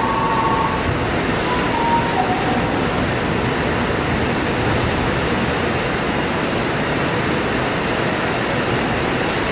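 A Tokyu Toyoko Line commuter train running along the station platform: a steady, even noise of wheels on rails. A faint high tone fades out about a second in.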